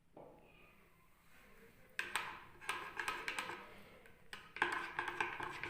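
A spoon stirring in a cup, clinking quickly and repeatedly against its side from about two seconds in, with a brief pause a little after four seconds.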